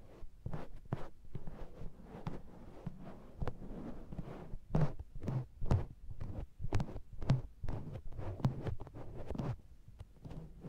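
A makeup sponge is patted and pressed against a binaural microphone's ears. It gives irregular soft, muffled thumps with a sticky, suction-like pull, heaviest mid-way and easing off near the end.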